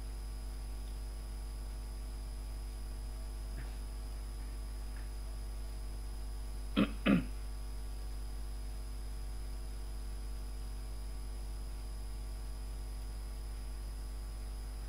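Steady low electrical hum from the recording setup, with a couple of faint clicks. Just before seven seconds in, a man gives a short two-part throat clear, the loudest sound here.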